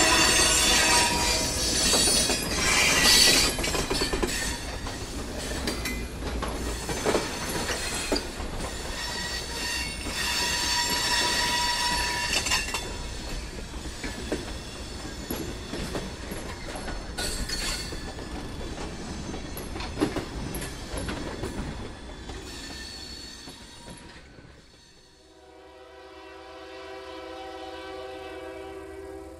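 Freight cars of a slow-moving train rolling past, wheels squealing and knocking over the rail joints. After a break about 25 seconds in, an approaching locomotive sounds its horn in one long chord.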